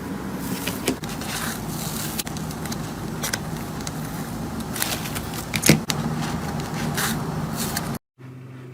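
Slime being handled and pressed by hand, making irregular crackling and clicking sounds over a constant low hum. The sound cuts out abruptly about eight seconds in, and a quieter, different hum follows.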